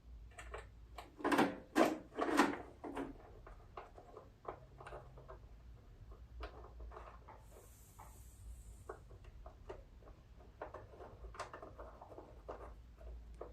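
Light clicks and knocks of metal and plastic parts being handled and fitted as a choke cable is put onto a riding mower's engine: three louder knocks in the first few seconds, then scattered lighter clicks.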